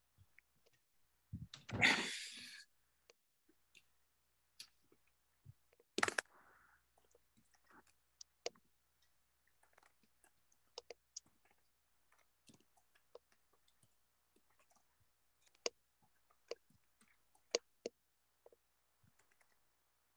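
Faint, scattered clicks and taps of someone working a computer's mouse and keyboard, picked up by a video-call microphone. A short, loud burst of noise comes about two seconds in, and a sharp knock about six seconds in.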